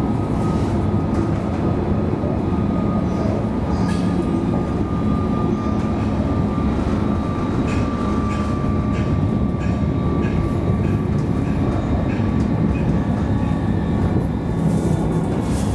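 Alstom Citadis tram running along its track, heard from inside the driver's cab: a steady rumble of wheels on rails with a thin high whine, and a few faint clicks.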